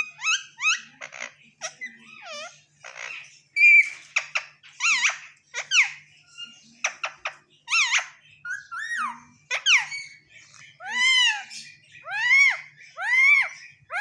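Indian ringneck parakeet calling: a rapid run of varied chirps, squeaks and short whistled glides. In the last few seconds it settles into loud, arching screeches about a second apart.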